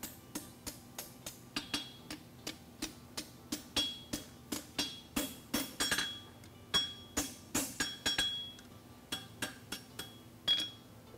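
Hand hammer striking a red-hot steel bar on an anvil while forging a horseshoe: a steady run of blows, about two to three a second, each with a short ringing clink from the anvil. The blows stop near the end.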